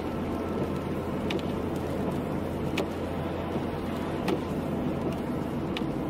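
A car driving on a wet road at night: steady engine and tyre noise with a low hum. Faint, evenly spaced clicks come about every second and a half.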